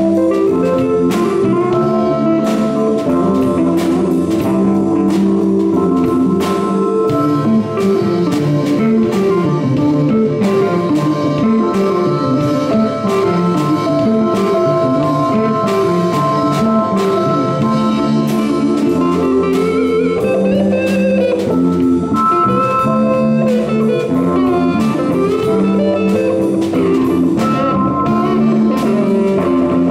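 A live band of electric guitar, electric bass, Yamaha drum kit and keyboard playing an instrumental piece, with quick runs of notes over a steady drum beat.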